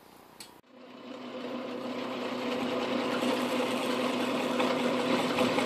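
Atlas/Craftsman metal lathe running with a steady hum, building up over the first couple of seconds after a short quiet start, while a hand-held scraping tool shaves the bore of a spinning 3D-printed plastic pulley.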